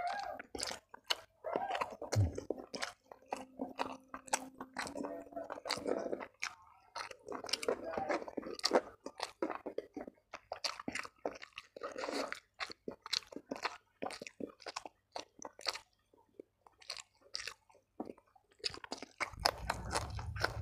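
Close-miked chewing and crunching of a meal eaten by hand: shredded chicken and rice, with crisp bites of raw long bean, as irregular wet crunches and smacks.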